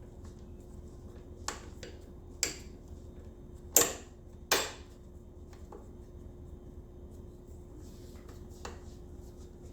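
Scattered sharp clicks and clacks of metal parts and tools as a motorcycle headlight trim bezel is fitted back in place, the two loudest about a second apart midway, over a steady low hum.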